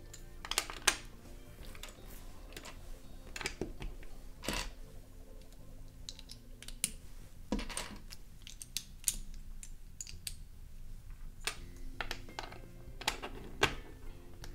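Plastic LEGO bricks clicking and clattering as they are handled, pressed together and pulled apart, with irregular sharp clicks every second or so.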